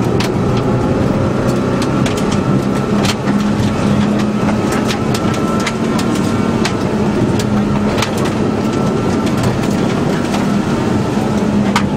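Rally car's engine running hard, heard inside the cabin, with a steady high whine above it. Sharp ticks scattered throughout as gravel strikes the car on the loose dirt road.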